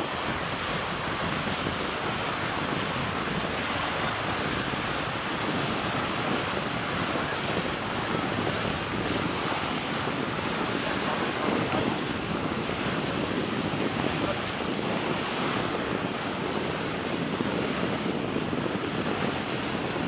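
Steady wash of sea waves with wind blowing across the microphone.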